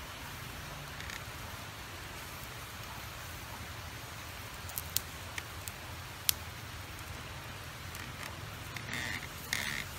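Steady sizzle and hiss of a pig's head grilling, with a few sharp pops in the middle. Short duck-like calls come in near the end.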